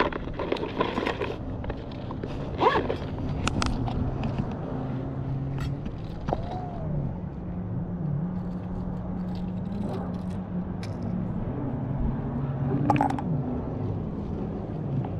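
A motor drones steadily, its low pitch shifting now and then, with scattered sharp clicks and knocks over it.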